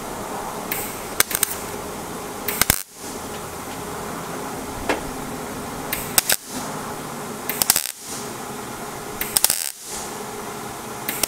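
Millermatic 141 MIG welder's arc laying short tack welds on thin sheet steel: about six brief crackling bursts, each a fraction of a second long, a second or two apart. The tacks are overlapped one after another to build a solid seam without burning through the thin metal.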